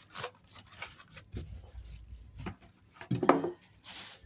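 Handling noise while unpacking sewing machine accessories: plastic parts rubbing and knocking together in short bursts, with a louder clunk about three seconds in.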